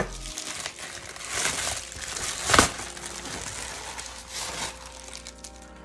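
Plastic bubble mailer crinkling and rustling as it is handled and opened, loudest in a burst of rustling around the middle, then quieter handling.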